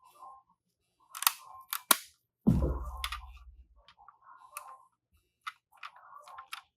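Die-cast toy ambulance minicars clicking and clattering against each other and a hard surface: a quick cluster of sharp knocks about a second in, one heavier thump a little later, then scattered single clicks.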